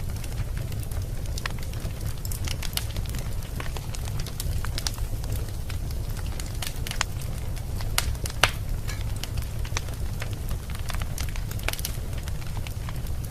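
Fireplace fire crackling, with many irregular sharp pops and snaps over a steady low rumble. One pop stands out louder about eight and a half seconds in.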